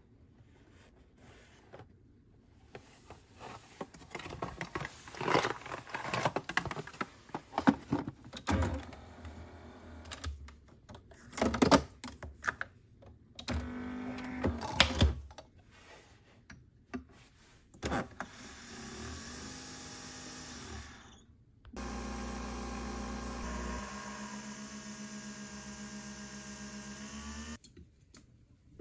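Clicks and knocks of a coffee capsule and its cardboard sleeve being handled and loaded, then a Nespresso Vertuo machine brewing: a steady motor hum that turns louder and pulses evenly partway through, and stops shortly before the end.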